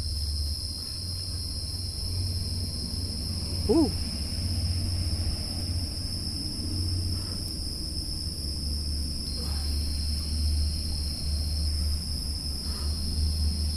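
Steady, high-pitched insect chorus, with a low wind rumble on the microphone. A single short pitched call, rising and falling, stands out about four seconds in.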